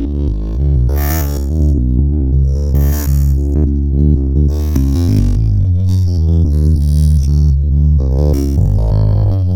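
Electronic music with heavy, continuous deep bass, played loud through an 18-inch subwoofer.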